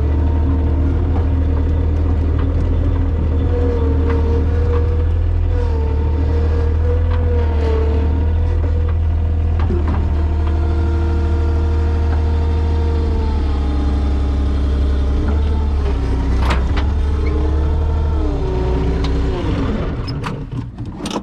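New Holland L150 skid steer's diesel engine running steadily, with a higher whine above it that slides up and down in pitch as the machine is worked; the engine shuts off near the end.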